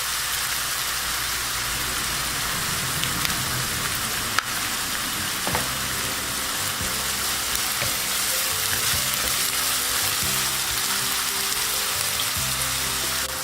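Sliced onions, green chillies and curry leaves sizzling steadily in hot oil in a pan as they fry toward golden brown, with a single sharp click about four seconds in.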